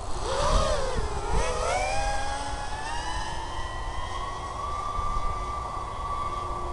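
FPV quadcopter's motors and propellers spinning up for takeoff. The whine rises and wavers in pitch with the throttle for the first couple of seconds, then settles into a steady high whine in flight.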